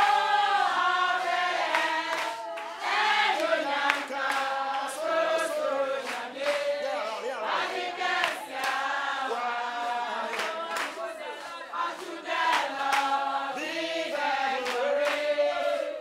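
A group of women singing together with full voices, with hand claps.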